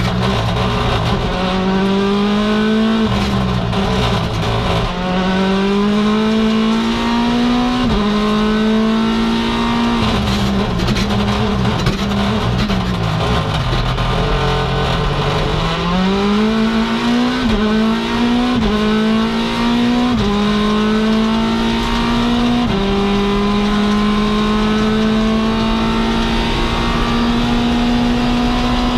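Mini John Cooper Works WRC's turbocharged 1.6-litre four-cylinder rally engine, heard from inside the cabin, revving hard and changing up through the gears with sharp drops in pitch at each shift. About halfway through the revs fall away low, then climb again through several quick upshifts. The engine holds a steady high note over the last few seconds.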